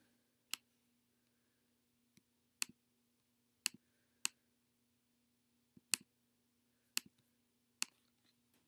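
Computer mouse clicks: about nine sharp, irregularly spaced clicks, two of them a quick pair near the middle, over a faint steady low hum.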